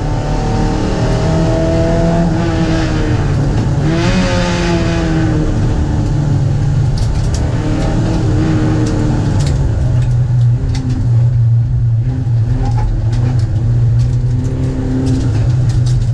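Proton race car engine heard from inside the cabin, its pitch climbing and dropping through gear changes, then holding a steady pitch at speed from about ten seconds in, with scattered sharp ticks and rattles.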